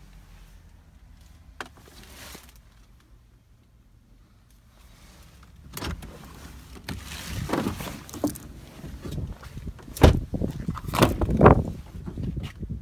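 Handling noise of someone moving about inside a car cabin: a single click, then from about six seconds in rustling with several bumps and knocks, the loudest near the end.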